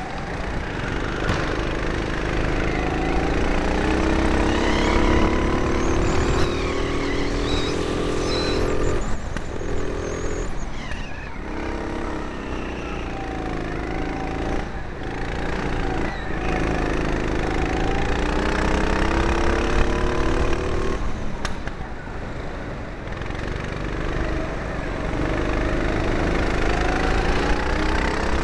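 Four-stroke rental go-kart engine heard from on board, its pitch climbing for several seconds at a time and dropping sharply as the throttle comes off, again and again. A few short knocks can be heard along the way.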